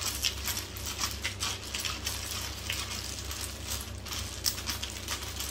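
Small letter-casting pieces clattering together as they are cast: a dense run of light, irregular clicks.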